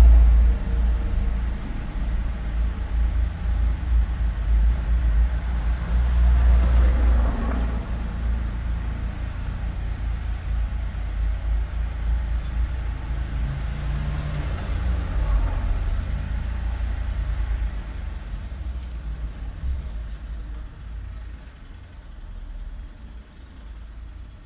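Street traffic: a steady deep rumble with vehicles passing, two of them swelling up about a third and about two thirds of the way through, and the whole growing quieter toward the end.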